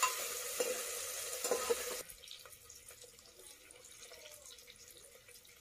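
Cauliflower sizzling in hot mustard oil in an aluminium pressure cooker, with a spoon knocking and scraping against the pot. The sizzle cuts off abruptly about two seconds in, and only a few faint light clicks follow.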